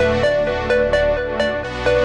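Electronic dance music with a steady beat of about two pulses a second and held synth notes.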